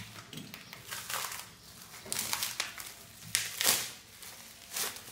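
Plastic bubble wrap crinkling and crackling in a string of irregular bursts as it is cut and pulled off a smartphone by hand, the loudest about three and a half seconds in.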